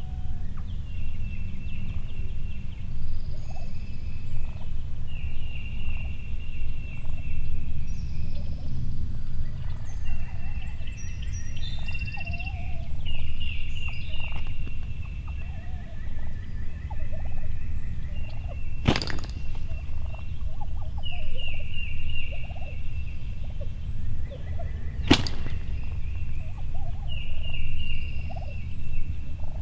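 Eastern wild turkeys gobbling over and over, one rattling gobble after another every second or two, over a steady low rumble. Two sharp knocks come in the second half.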